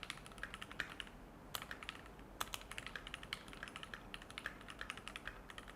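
Fast, steady typing on a Keychron Q2 mechanical keyboard fitted with Keychron's Silver Grey keycaps: a faint, quick run of key clacks with a few louder strokes.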